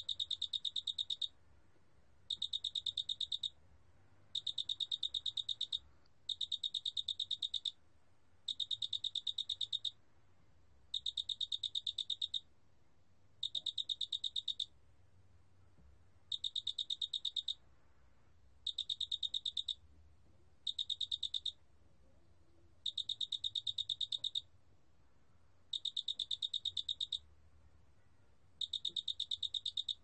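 큰알락귀뚜라미 cricket calling, recorded at 28 °C: a high-pitched trill of rapid pulses, each lasting about a second to a second and a half, repeated about once every two seconds with short pauses between.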